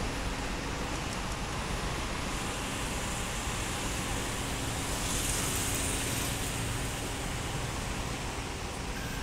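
Steady outdoor city street ambience of road traffic running past, with a faint steady hum underneath; a brighter hiss swells briefly about five seconds in.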